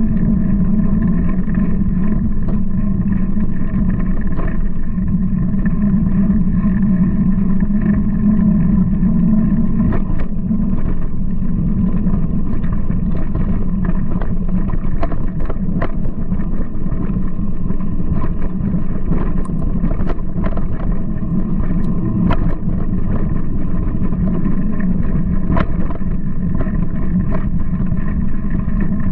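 Mountain bike riding a bumpy dirt trail, heard from a camera mounted on the bike: a steady rumble of tyres and wind on the microphone, with scattered knocks and rattles from bumps, more frequent in the second half.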